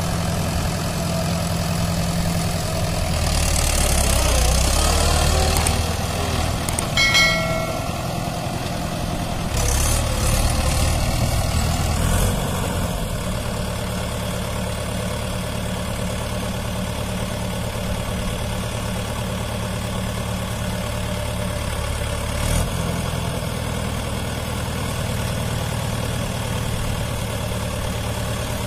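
Mahindra 585 DI tractor's diesel engine running steadily while it hauls a loaded tipping trolley. It gets louder for a few seconds twice in the first half. A brief high-pitched sound comes about seven seconds in.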